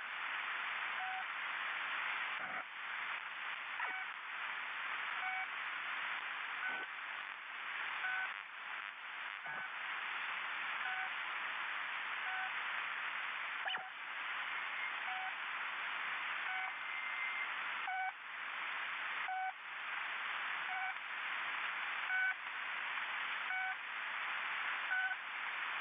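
Steady static hiss, like a band-limited radio or broadcast channel, with short electronic beeps at a few different pitches repeating about every second and a half.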